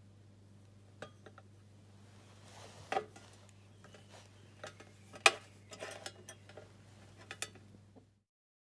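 Handling clatter of carbon electrodes and a plastic electrode holder knocking against a glass beaker, with clicks of alligator clips, heard as a scatter of sharp clicks and clinks, the loudest about five seconds in. A steady low hum runs underneath.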